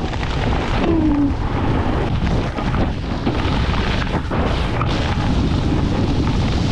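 Wind buffeting a camera microphone as a snowboarder rides downhill, a steady low rumble, with the board sliding and scraping over the snow.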